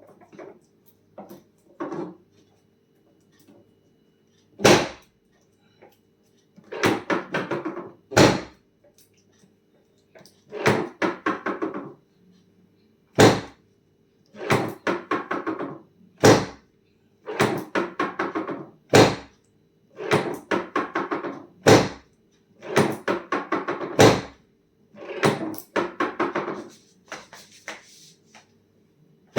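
Sharp, loud mechanical knocks about every three seconds during a chiropractic adjustment. Each knock alternates with a rattling clatter about a second long, over a faint steady hum.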